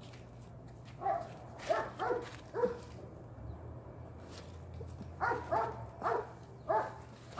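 A dog barking in short, pitched barks: a run of four about a second in, then four more about five seconds in.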